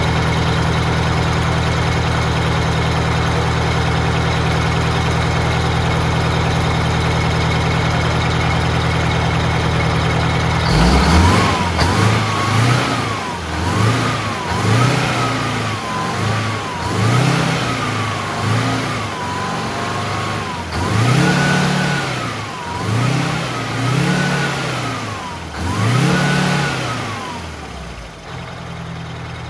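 Freshly in-frame-rebuilt Detroit Diesel 8V92 two-stroke V8 in an MCI coach, running at a steady fast idle. About ten seconds in it is revved up and down repeatedly, roughly every two seconds, and near the end it drops back to a lower idle.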